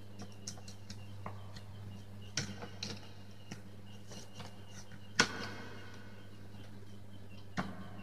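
Light clicks, taps and knocks of electrical wires and a plastic socket being handled and pushed into a plastic wall box, irregular, with the sharpest knock about five seconds in. A steady low hum runs underneath.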